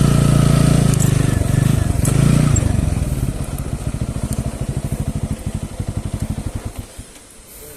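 Motorcycle engine running, revving for the first couple of seconds, then settling to a slow, even idle that cuts off about seven seconds in as the engine is switched off.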